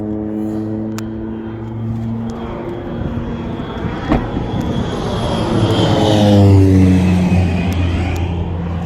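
Small aircraft flying over, its engine drone swelling to its loudest about two-thirds of the way through and falling in pitch as it passes. A single sharp click about four seconds in.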